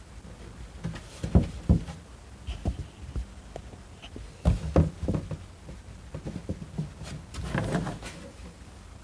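Knocks, clunks and clicks of a fuel tank and a petcock fitting with its rubber gasket being handled and fitted together: two sharp knocks about a second and a half in, two more around four and a half seconds, then a scraping rustle near the end.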